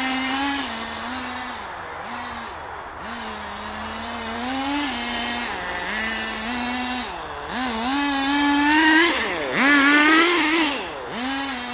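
Nitro RC car's small two-stroke glow engine revving up and down over and over as the car is driven, its pitch rising and dipping with each blip of throttle. It is loudest near the end.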